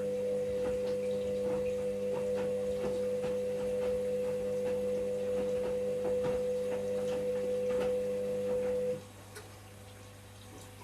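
Washing machine running with a steady electric hum and light irregular rattling clicks. The hum cuts off abruptly about nine seconds in, leaving a faint low hum.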